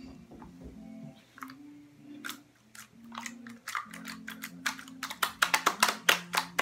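Slime being pressed and kneaded by hand, making quick wet clicks and pops that come faster and louder in the last two seconds.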